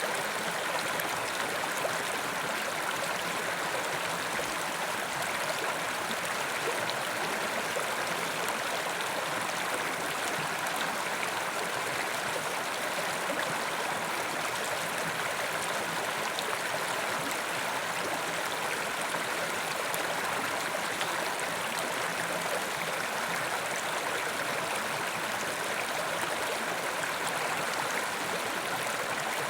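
Carpathian mountain river rushing steadily over rocks.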